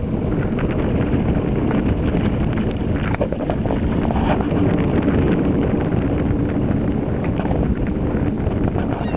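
Steady wind buffeting the microphone, over the low, steady hum of a boat's engine.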